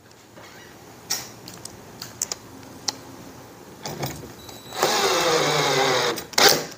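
Scattered clicks of screws and parts being handled, then, about five seconds in, a cordless drill whirs steadily for about a second and a half, driving a mounting screw into the trolling motor's gas piston bracket, and stops.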